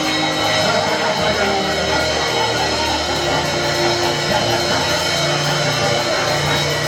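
Worship music: instrumental accompaniment with guitar and sustained chords over a steady bass line.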